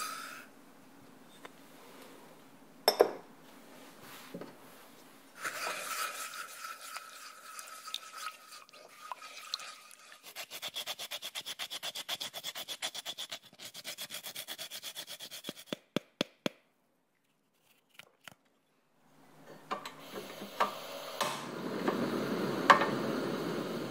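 A lime is rubbed on a fine grater for zest, with quick rasping strokes about four a second for several seconds. Before it there is a longer hissing scrape, and near the end a stove knob clicks and a steady low rushing noise starts as the burner comes on at low heat.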